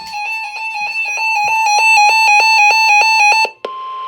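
A bright electronic keyboard melody of quick repeated notes, which cuts off abruptly about three and a half seconds in. Just after it, a single steady alert tone begins.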